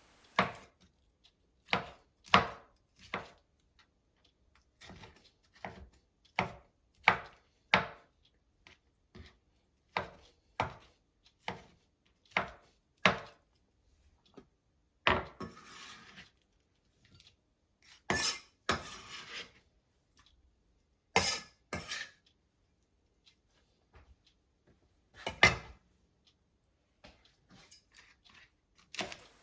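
Kitchen knife dicing a tomato on a cutting board: single sharp knocks at an uneven pace, with a few longer, noisier strokes.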